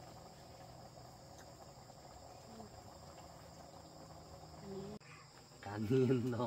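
Steady high chirring of insects in the background. Near the end a person's voice sounds briefly and loudly over it.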